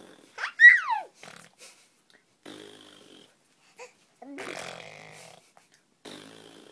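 A baby vocalising: a loud, high squeal that falls in pitch about half a second in, followed by several softer, low, breathy grunting noises.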